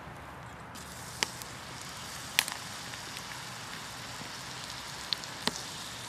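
Wood fire crackling under a small frying pan, with a few sharp snaps, over a steady sizzle of butter frying banana slices.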